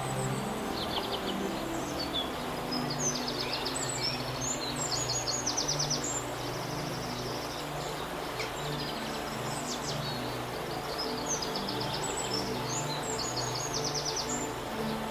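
Songbirds singing rapid trills and short chirps, repeated throughout, over a steady rush of flowing water. Soft, slow calming music with held low notes plays underneath.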